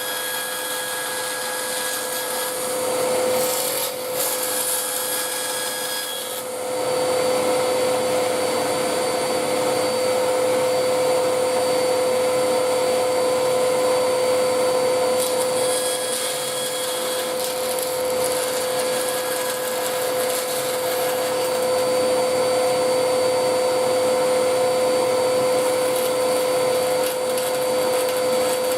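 An electric power tool motor running steadily at a constant high pitch. It gets louder about six seconds in.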